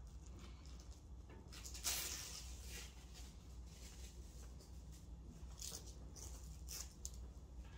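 Rolled felt puzzle mat being handled on a glass tabletop: a short tearing rasp about two seconds in, typical of a Velcro strap being peeled open, then faint brushing and a few brief scratchy rasps as the felt is moved.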